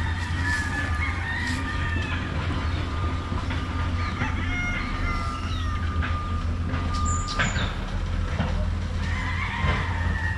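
Gamecocks crowing, once near the start and again near the end, over a steady low rumble and a thin steady high tone that stops about seven and a half seconds in.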